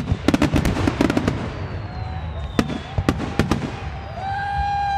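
Fireworks finale: a rapid string of sharp cracks and bangs from bursting aerial shells, thickest in the first second and a half and again past the middle. A thin falling whistle runs through the middle, and a steady high whistle starts shortly before the end.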